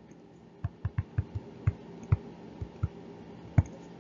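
Stylus tapping and clicking against a tablet screen while writing by hand: about ten sharp, irregularly spaced clicks, the loudest about three and a half seconds in.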